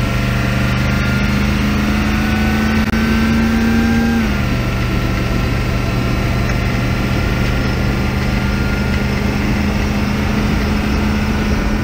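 HMMWV's 6.5-litre diesel engine and drivetrain running while driving, heard from inside the cab as a steady drone with a high whine above it. The pitch rises slightly, then falls sharply about four seconds in and holds steady.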